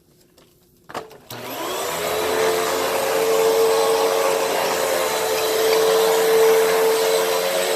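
Hoover WindTunnel upright vacuum cleaner switched on with a click about a second in, its motor whining up to speed and then running steadily with a loud, high whine over a rushing of air.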